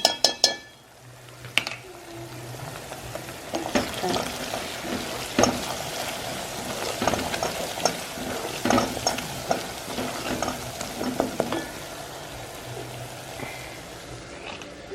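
Onions, garlic and paprika sizzling in oil in a pot while being stirred, with a few sharp clinks right at the start and repeated knocks and scrapes of the spoon against the pot from about four to twelve seconds in.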